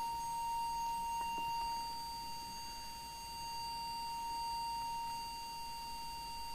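A steady, unbroken test tone, a high beep-like pitch, from a small Korg tuner-metronome used as an audio oscillator to modulate a CB radio while its AM modulation level is being set.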